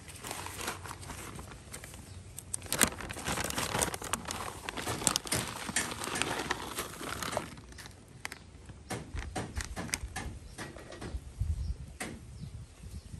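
A clear plastic bag of fertilizer granules crinkling as it is handled, then scattered small ticks as the granules are sprinkled by hand onto potting soil in a plastic tub near the end.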